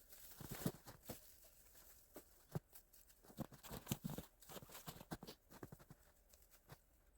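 Faint, scattered knocks and crunches at an irregular pace, with a few louder ones about half a second in and again around three and a half to four seconds in.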